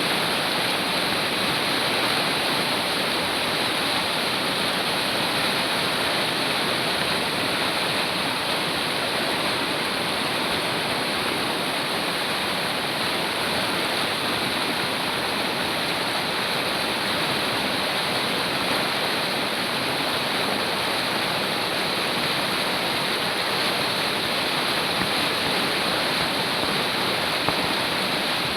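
River or mountain stream rushing steadily over rocks: a constant, loud, even roar of running water.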